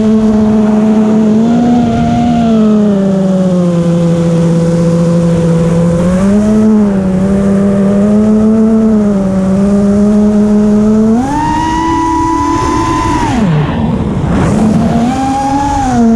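FPV quadcopter's electric motors and propellers whining, heard from the onboard camera, the pitch sliding up and down with the throttle. About eleven seconds in the whine jumps higher, then about two seconds later drops sharply and climbs back up.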